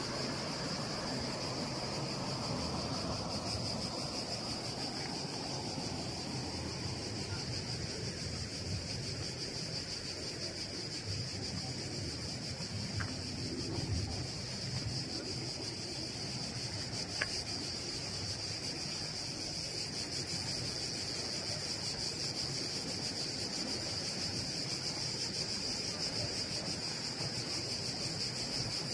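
Cicadas singing in the trees: one continuous high, shrill buzzing chorus, over a low steady rumble.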